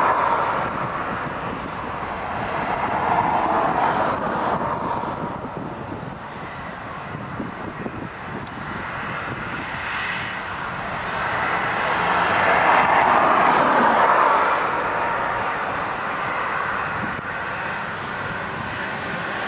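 Twin-engine jet airliner on its takeoff roll, engines at takeoff thrust. A steady jet noise swells twice, about three seconds in and again later on.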